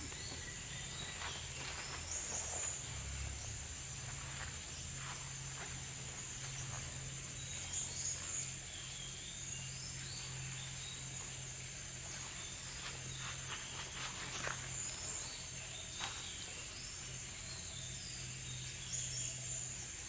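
Steady high-pitched drone of forest insects, with short high chirps dotted through it.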